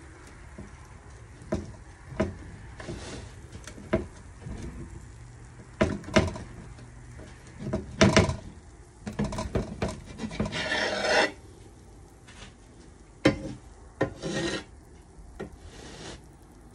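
Large kitchen knife sawing and pressing through baked pizza crust on a pizza pan: short rasping strokes with several sharp knocks. The longest stretch of rasping comes about ten seconds in.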